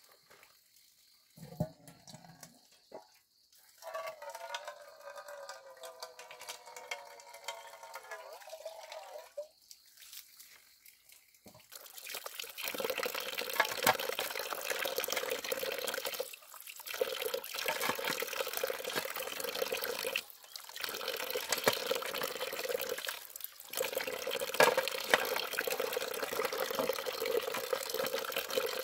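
Water running in a steady stream, stopping briefly three times. Before it, a quieter wavering pitched sound lasts several seconds.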